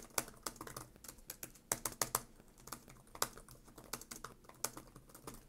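Typing on the Samsung Galaxy Book Pro 360 5G laptop's keyboard: a quiet, steady run of key clicks at an uneven typing pace.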